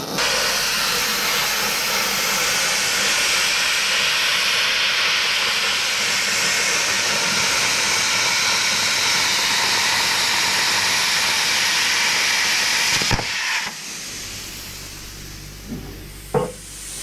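Electric arc welding on steel: the arc gives a steady sizzling hiss for about thirteen seconds, then cuts off abruptly. After that there is only quieter background noise with a couple of short clicks near the end.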